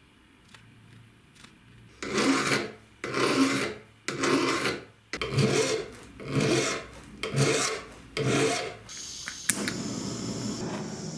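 A hand file rasping across a small steel part clamped in a vise, in about seven slow strokes roughly one a second. Near the end there is a click, then the steady hiss of a handheld gas-cartridge torch flame.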